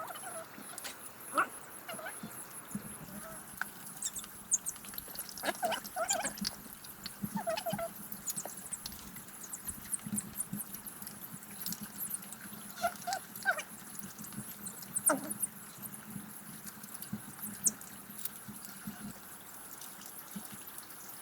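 Short, high animal calls come now and then, among many small clicks, over a steady high-pitched background tone.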